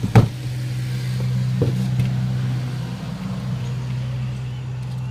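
A loud thump about a quarter second in as a JBL EON712 loudspeaker cabinet is set down on its cardboard box, then a lighter knock about a second and a half later as it is settled. A steady low hum runs underneath.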